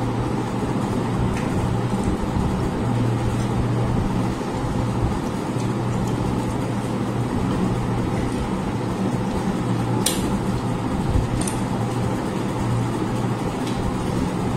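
Steady low hum over a constant noise, with two brief clicks about ten and eleven and a half seconds in.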